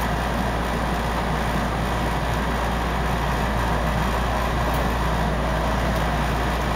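Steady running noise inside a moving electric train: wheels rolling on the rails and the car's low hum, with no sudden knocks or changes.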